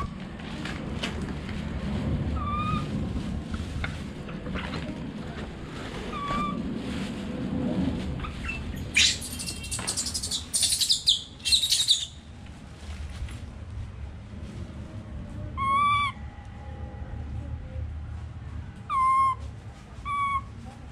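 Baby monkey giving short, high, whistle-like cries several times, with a louder, shriller screeching stretch around the middle. These are its calls as its owners go out.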